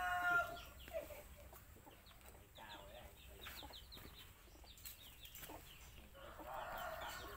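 Chickens: a rooster's crow trailing off about half a second in, then a run of quick, high, falling peeps, and another chicken call near the end.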